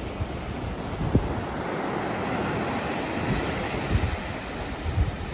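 Sea surf breaking and washing up a sandy beach in a steady rush, with wind buffeting the microphone in a few short low gusts.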